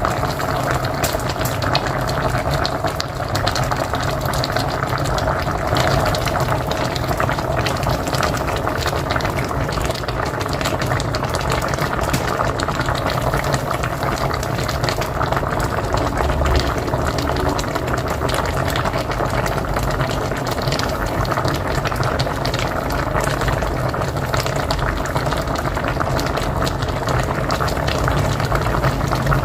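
Pot of mocotó (beef feet) boiling on a wood-fired stove: a steady, dense bubbling full of small pops, with a low rumble underneath.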